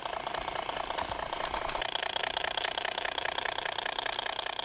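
Battery-powered radio-controlled garden railway locomotive running steadily along the track: an even mechanical hum with a fast rhythmic chatter, a higher tone coming up about two seconds in.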